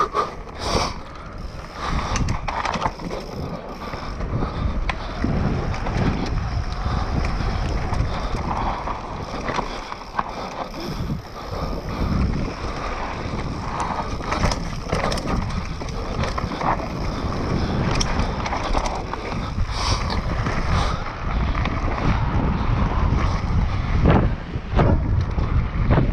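Mountain bike descending a rough dirt trail at speed: tyres rolling over loose dirt and rocks with a low rumble, the bike rattling and knocking sharply over bumps, and wind buffeting the microphone.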